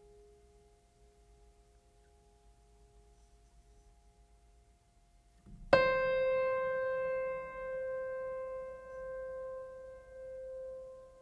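Background music: faint soft held tones, then about six seconds in a single loud keyboard note struck and left ringing, slowly fading with a gentle waver.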